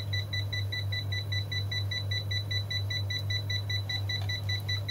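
UNI-T UT201+ clamp meter's non-contact voltage (NCV) alarm beeping rapidly and evenly, signalling that it senses voltage in the nearby live wire. A steady low hum runs underneath.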